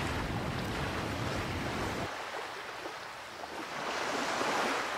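Surf washing on a beach, with wind buffeting the microphone for the first two seconds. The low rumble cuts off abruptly about two seconds in, leaving a steady hiss of surf that swells near the end.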